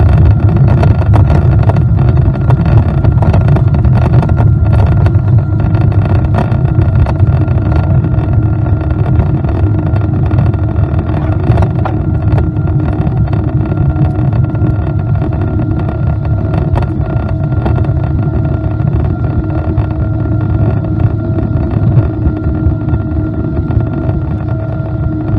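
Boeing 777-200 jet engines and rushing air heard from inside the cabin: a loud, steady low rumble with a few steady hum tones, easing off slowly toward the end.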